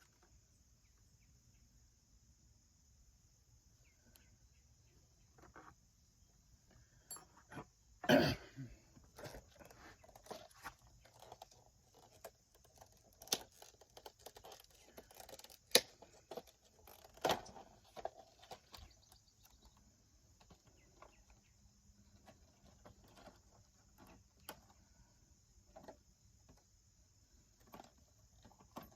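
Scattered clicks, taps and knocks of hands working on a string trimmer and its parts with tools, with a louder knock about eight seconds in and two more about halfway through.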